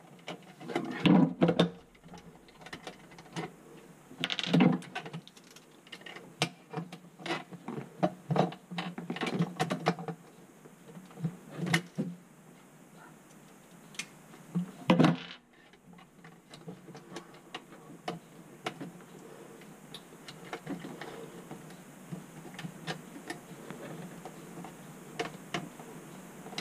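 Irregular clicks, taps and knocks of hand tools and parts against a garbage disposal's housing and mounting hardware while it is being fitted under a sink. There are louder clusters about a second in, around four and a half seconds in and around fifteen seconds in, with lighter ticking between them.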